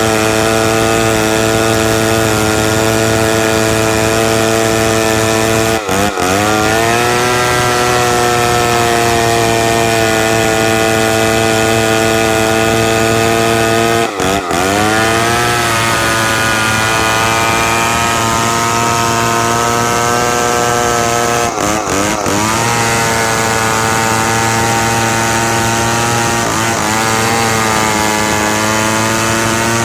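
Two-stroke chainsaw running at high revs while cutting timber into beams. The engine speed dips briefly four times, about 6, 14, 22 and 27 seconds in, and climbs straight back up each time.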